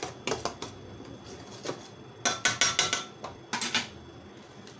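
A metal spatula knocking and scraping against a stainless-steel kadai of cooking masala. A few separate clinks come first, then a quick run of ringing clanks about halfway through, and a couple more shortly after.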